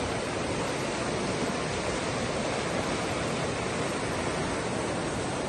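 Muddy floodwater rushing steadily down a river in spate.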